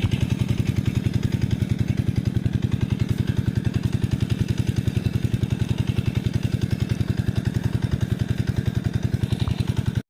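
A small engine running steadily at idle, a low even pulsing of about seven beats a second; the sound cuts off suddenly at the end.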